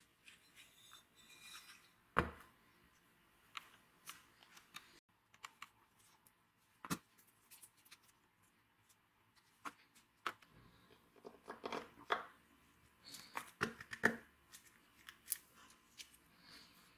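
Scattered clicks, taps and knocks of metal angle-grinder parts being handled and fitted together on a wooden workbench: an aluminium gear housing, a ball bearing and the armature shaft. A sharp knock comes about two seconds in, another near seven seconds, and a cluster around fourteen seconds.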